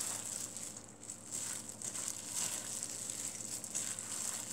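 Disposable plastic glove crinkling and rustling as a gloved hand gently tosses sauce-coated spinach in a stainless steel bowl, in soft, irregular strokes.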